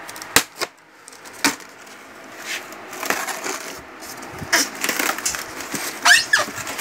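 Thermocol (expanded polystyrene) packing case being handled and pulled open. Three sharp cracks come in the first second and a half, then rustling and scraping, and near the end squeaks of foam rubbing against foam as the lid comes off.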